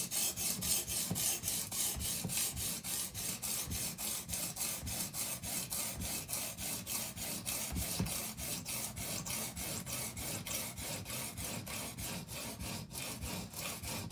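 An 80-grit diamond matrix stone on an Edge Pro Apex sharpener rasping back and forth along a steel chef's knife blade, wetted, in quick even strokes of about four a second. The coarse stone is thinning the blade, grinding down the shoulders of the widened bevel.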